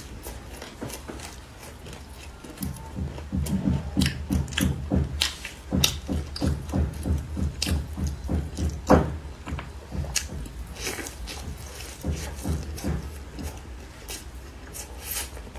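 Close-miked chewing of a crisp homemade shredded potato and carrot pancake: a steady run of crunchy, moist chews a few times a second, with one louder crunch about nine seconds in.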